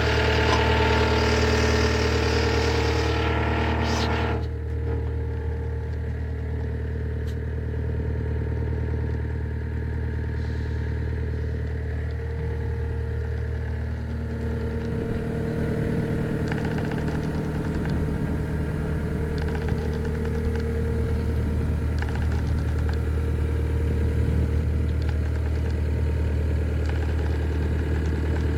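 Takeuchi TL240 skid steer's diesel engine running steadily. A higher-pitched noise over it drops away about four seconds in, and the engine note shifts slightly around fifteen seconds.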